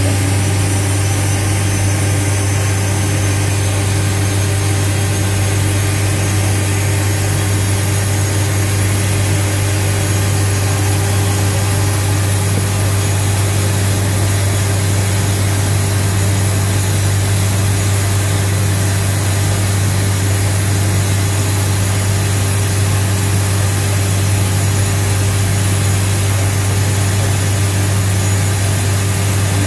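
Hawker Siddeley Nimrod's auxiliary power unit running steadily, heard inside the cockpit as a constant low hum under a high turbine whine.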